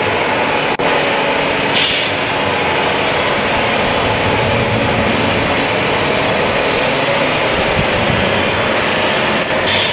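Steady rumbling noise of radio-controlled model trucks running, likely including their electronic diesel-engine sound units, with a brief dip about a second in.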